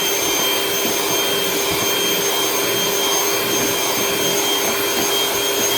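Electric mixer running at a steady speed, whipping cream: an even whir with a fixed motor whine.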